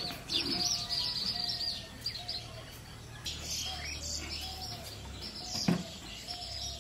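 Small birds chirping busily, with a short low-pitched call repeating about twice a second, and a single knock near the end.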